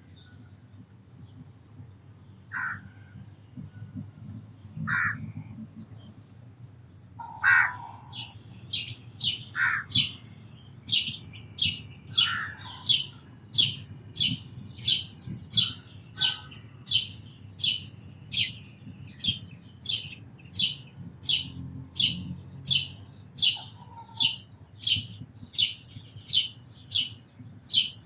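House sparrow chirping over and over, a sharp high chirp about three times every two seconds, starting about eight seconds in. Before that there are a few separate lower, harsher bird calls a couple of seconds apart.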